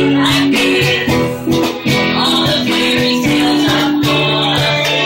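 Live acoustic guitar strummed in a steady rhythm, with singing over it.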